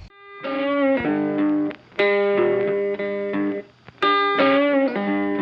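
Background music: an electric guitar with distortion playing a riff of sustained chords.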